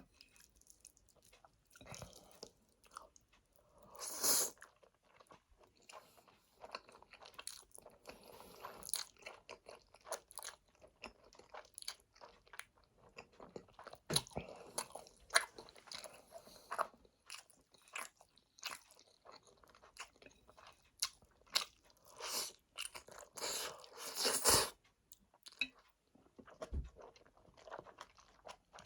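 Close-miked chewing and mouth sounds of someone eating Chapagetti black-bean noodles: irregular wet clicks and smacks, with a couple of longer noisy bursts about four seconds in and again about twenty-four seconds in.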